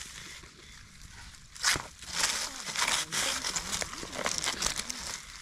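Dry leaf litter rustling and crackling as it is disturbed, in irregular bursts starting about a second and a half in.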